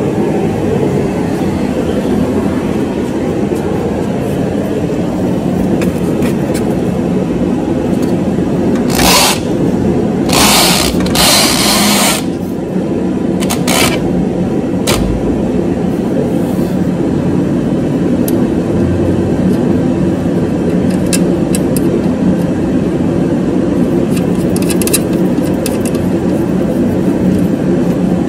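A steady mechanical whir runs throughout. About a third of the way in, a few short bursts of clicking and scraping come from a wrench being worked on the steering rod ends of the front suspension.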